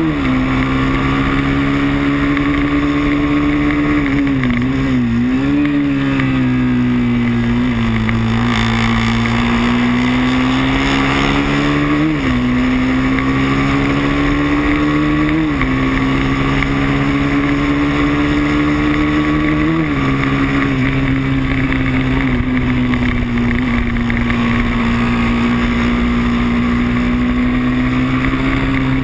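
Moto3 racing motorcycle's engine running hard at high revs, heard from a camera mounted on the bike, with wind rushing over the microphone. The engine note holds nearly steady, with a wavering dip about four seconds in and a few short blips in pitch later on.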